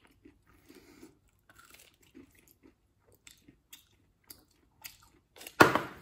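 A person chewing a mouthful of a crunchy Nature Valley Protein red fruit and peanut bar, with small scattered crunches, then a short louder noise near the end.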